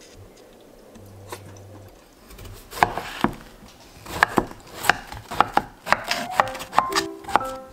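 Kitchen knife chopping a round summer squash on a wooden cutting board: a quick run of sharp knocks of the blade meeting the board, about three a second, starting a few seconds in.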